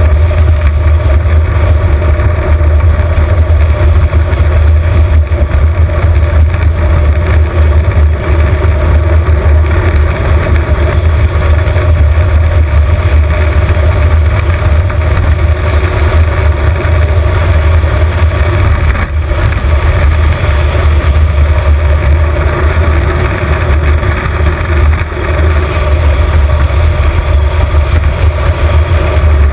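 Loud, steady rumble of an engineless soapbox car rolling fast downhill, its wheels running on the asphalt and its body shaking, picked up by a camera mounted on the car.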